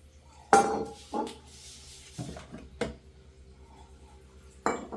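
A short animal call about half a second in, followed by a few light knocks.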